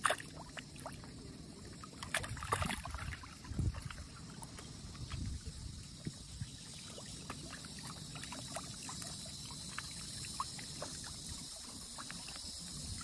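Faint sloshing and trickling of shallow, weedy water over a steady hiss, with a few soft knocks and splashes in the first few seconds.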